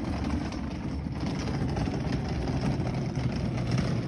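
Rolling suitcase's wheels rattling over a rough concrete lane as it is pulled along at a walk: a steady low rattle.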